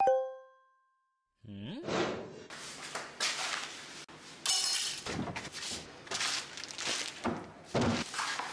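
A smartphone reminder chime rings once and dies away. After a short pause comes a rising whoosh, then a quick run of kitchen clatter: thunks, knocks and clinks of knives, pots and chopping board.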